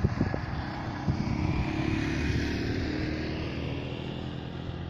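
Light propeller aircraft's engine droning steadily, with a higher whine that shifts in pitch.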